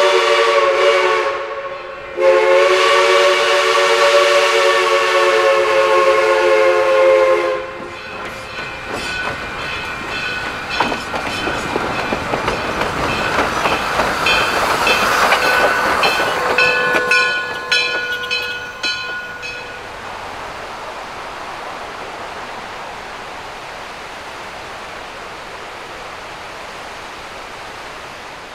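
Steam locomotive #1702's chime whistle sounds a chord of several tones in two blasts, a short one and then one of about five seconds. The engine then goes by with a swelling, clattering rush of steam and running gear that fades away, leaving a steady hiss.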